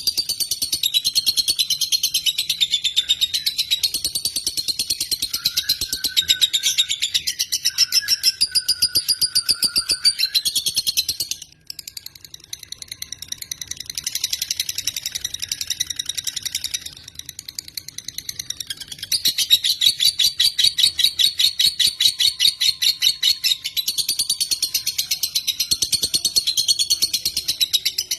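Lovebird singing a long, rapid chattering trill (the 'ngekek' of a gacor lovebird), high and fast, wavering in pitch. It breaks off briefly about eleven seconds in, goes on more softly, then comes back loud again about two-thirds of the way through.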